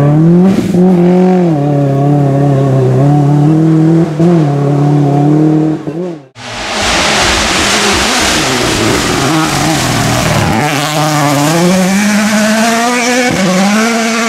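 Rally car engine running at high revs, its pitch rising as it accelerates, with a brief dip at a gear change about four seconds in. About six seconds in the sound cuts abruptly to another rally car, with a loud rushing tyre-and-gravel noise and its engine note climbing again near the end.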